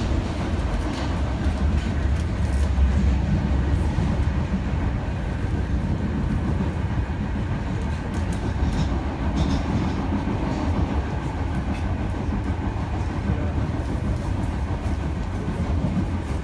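Osaka Metro Midosuji Line subway train running through the tunnel between stations, heard from inside the car: a steady low rumble of wheels on rail and running gear, with a few faint clicks about halfway through.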